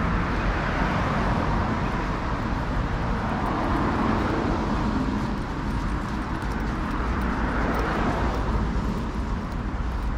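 Road traffic: several cars passing one after another, each a rush of tyre and engine noise that swells and fades, over a steady low rumble.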